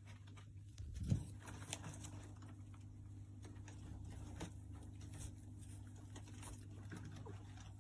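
Faint scattered scratching and pattering of a pet rat moving about, over a steady low hum, with a soft thump about a second in.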